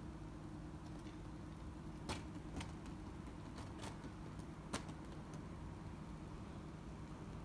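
Steady low hum, with about five short, sharp clicks scattered through the middle.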